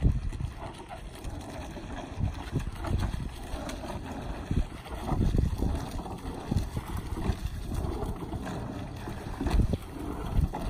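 Wind buffeting the microphone over water, with the irregular splashes and knocks of a rowing eight's oars as the shell passes.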